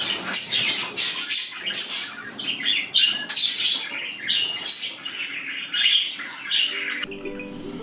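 Budgerigars chattering during mating: a dense run of short, high chirps and squawks as the cock mounts the hen. Music comes in about seven seconds in.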